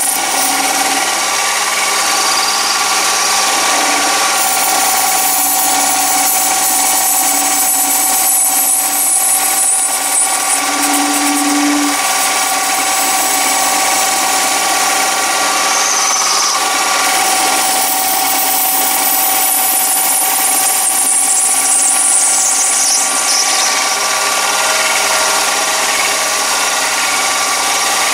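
Chinese mini lathe running at a steady speed with a constant motor whine, while a ball turning attachment is swung across the spinning workpiece taking light cuts to form a ball. Two stretches of higher hiss come and go during the cutting.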